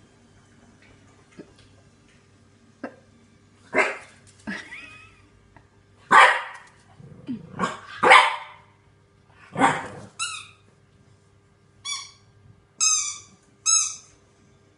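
French bulldog puppy barking repeatedly, several gruff barks followed near the end by a few short, high-pitched yips. It is wary alarm barking at a laundry basket the puppy is scared of.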